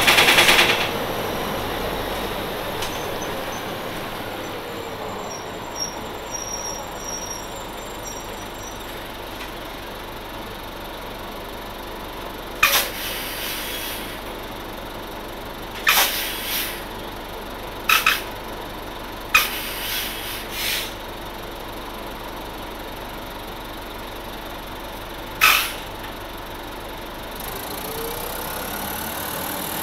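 Nova Bus RTS-06 transit bus with a Detroit Diesel Series 50 engine running, a steady drone whose whine falls in pitch a few seconds in and rises again near the end. A loud short burst of noise at the very start, then six short sharp bursts, five about halfway through and one more toward the end.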